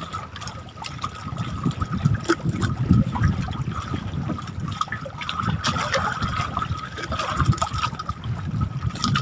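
Small waves lapping and slapping against a wooden outrigger boat on choppy sea water, an irregular wash with scattered light knocks.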